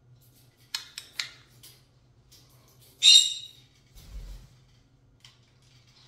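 Pyrrhura conure calling: a few short sharp chirps about a second in, then one loud harsh squawk about three seconds in. A dull low thump follows about a second later.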